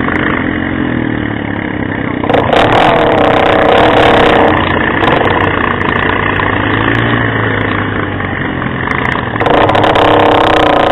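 ATV engine running hard and revving up twice, about two seconds in and again near the end.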